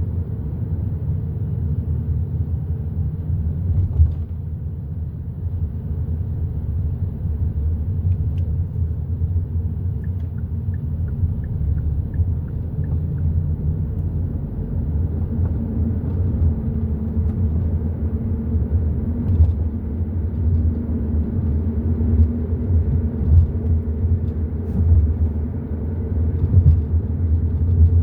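Hyundai i30 N Line on the move, a steady low rumble of engine and road. About ten seconds in there is a short run of faint, evenly spaced ticks.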